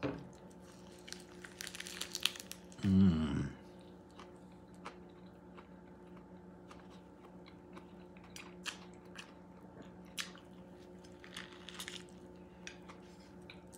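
Faint scattered small clicks and taps over a steady low hum, with a short murmur from a man's voice about three seconds in.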